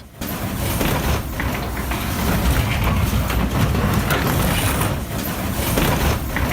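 Heavy demolition machinery at work on scrap: a steady low engine rumble with a rough, noisy layer over it and a few faint knocks.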